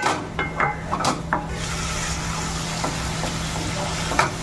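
Sliced onions and tomatoes sizzling in oil in a non-stick kadai while a spatula stirs them. The spatula scrapes against the pan several times in the first second and a half, then a steady sizzle carries on.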